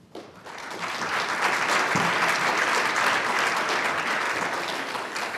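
Audience applauding, swelling over the first second and fading toward the end.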